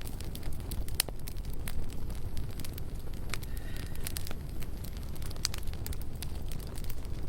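Campfire burning, wood crackling with irregular sharp pops over a steady low rumble.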